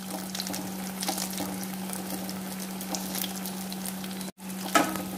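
Batter-coated green chilli bhajis deep-frying in hot oil in a steel pan: a steady sizzle with fine crackles as a slotted spoon moves through the oil. The sound drops out for an instant about four seconds in.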